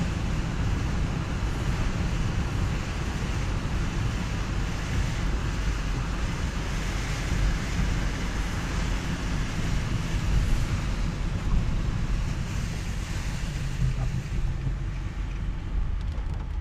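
Car driving on a wet road in the rain: a steady low rumble of engine and road with a continuous hiss of tyre spray and rain.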